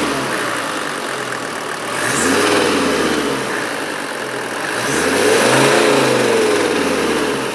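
Toyota 1PZ 3.5-litre five-cylinder diesel idling and being free-revved by hand at the throttle linkage. Its pitch rises and falls with three blips: one dying away at the start, one a couple of seconds in, and a longer, louder one near the end.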